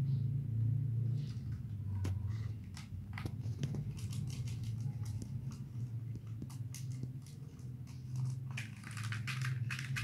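Steady low hum under scattered clicks and rustling as budgerigar chicks are handled in a tissue-lined plastic colander, with a busier patch of crackling near the end.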